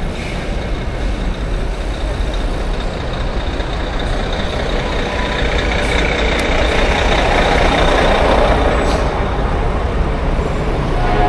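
Dense city traffic heard from a bicycle riding right beside buses: heavy engines running close by over a steady rushing noise, swelling in the middle as the bike passes alongside a bus.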